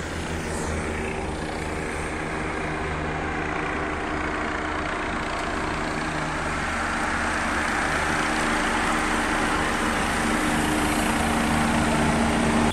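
A large peloton of road bicycles rushing past close by, a dense whirring hiss that grows louder toward the end, over a steady engine hum from the race's accompanying vehicles. It cuts off suddenly.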